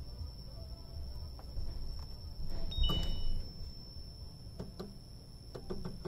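Bernina Artista 200 sewing machine's touchscreen giving a short two-tone beep about halfway through, with light taps and clicks of fingers on the screen and stitch knobs near the end, over a faint steady high whine.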